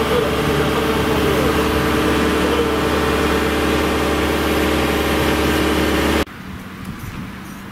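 Diesel engine of a wheeled excavator idling steadily. It cuts off suddenly about six seconds in, leaving only faint background noise.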